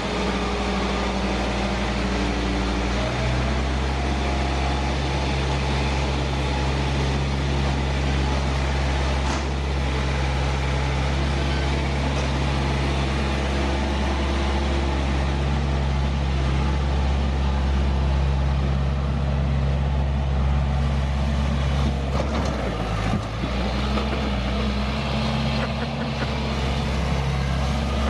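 Case 1840 skid steer's diesel engine running steadily on a test run after a worn hydraulic pump drive coupler has been replaced. Engine speed picks up about three seconds in and dips briefly near the end.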